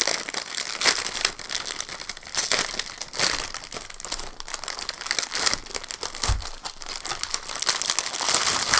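Plastic wrapper of a Barritas Fresa cookie package crinkling and rustling as it is handled and opened, with irregular crackles throughout.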